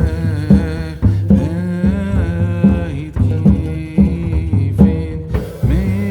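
Music with a steady beat, a deep bass line and a gliding melody over it.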